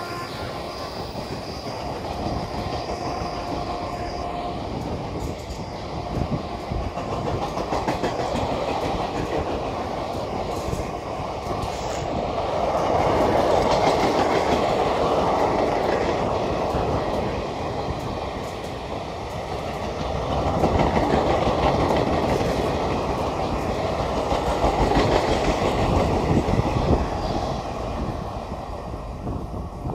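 Indian Railways express passenger coaches rolling past at speed, wheels clattering over the rail joints with a steady rumble. The noise swells and eases several times as the coaches go by, and the last coach passes near the end.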